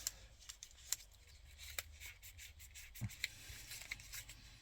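Light scratching and scattered small clicks of plastic car-door parts (window switches) being handled and cleaned by hand.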